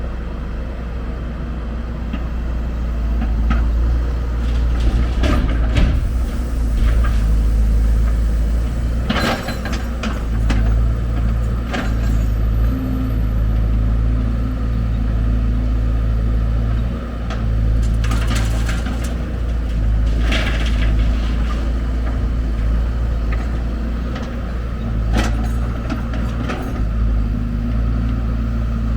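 Heavy diesel engine running steadily, its pitch stepping up and down as the load changes, with short clattering or hissing noises breaking in several times.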